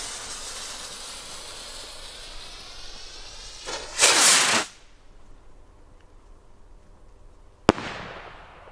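Premium New Year's Eve firework rockets fired from a launch rack. A rocket's hissing whoosh fades as it climbs. About four seconds in, another rocket lifts off with a short, loud hiss. Near the end a single sharp bang from a rocket bursting in the sky dies away.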